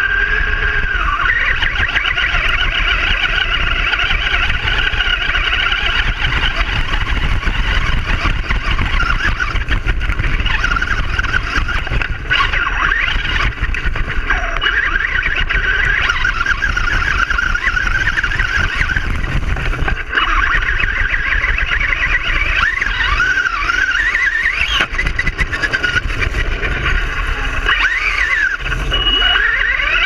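Traxxas Rustler RC car's electric motor and drivetrain whining, the pitch rising and falling with the throttle and sweeping up sharply a few times near the end, over a steady low rumble from the tyres.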